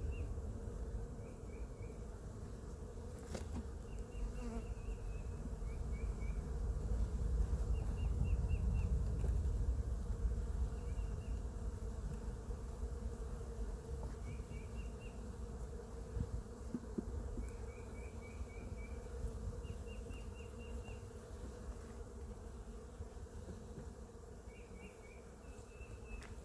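Honeybees buzzing around an open hive: a steady hum over a low rumble, with short trains of high chirps every few seconds.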